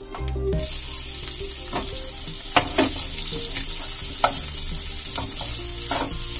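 Hot oil with tempered spices sizzling in a nonstick pan. The sizzle jumps up suddenly about half a second in as mashed boiled potatoes go into the oil, then carries on while a spatula stirs and scrapes them, with a few short knocks of the spatula against the pan.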